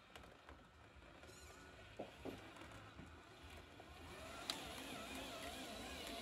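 Homemade 1/8-scale RC dump truck's motor and drivetrain whining faintly as it creeps forward loaded with dirt. The whine wavers in pitch and grows louder about four seconds in, with a couple of light knocks about two seconds in.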